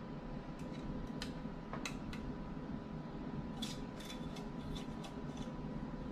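Light clicks and taps of hand tools and small metal engine parts being handled, in two short clusters, over a steady background hum.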